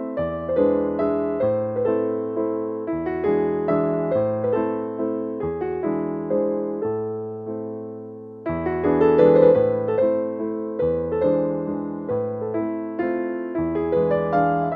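Background piano music: a gentle keyboard melody of struck, fading notes over changing bass notes, growing a little louder about eight seconds in.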